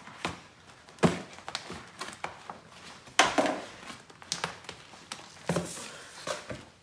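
Scissors cutting through the vinyl wall of an inflatable kiddie pool: a few sharp, irregular snips and clunks, the loudest about a second in and about three seconds in. The plastic rustles as it is handled between the cuts.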